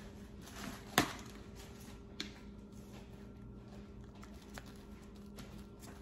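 Kitchen clatter: a sharp knock about a second in and a lighter click about a second later, then scattered faint ticks over a low steady hum.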